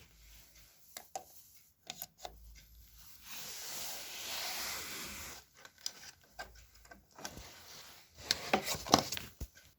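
Handling noise while plugging in a toy keyboard's adapter: scattered clicks, a rubbing, rustling stretch of about two seconds in the middle, then a quick cluster of clicks and knocks near the end.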